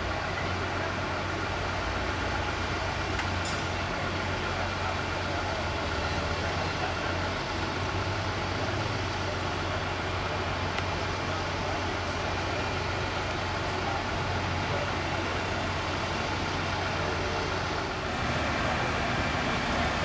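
Heavy diesel engine of the construction machinery running steadily with a low drone. Near the end the sound gets a little louder and the hiss of rain comes in.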